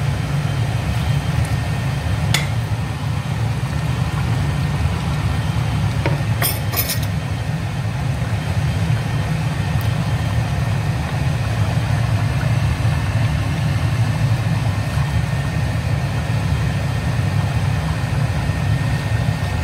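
Steady low rumble at the stove as a large pot of rice in broth boils hard, with a few brief clinks about two seconds in and again around six to seven seconds in.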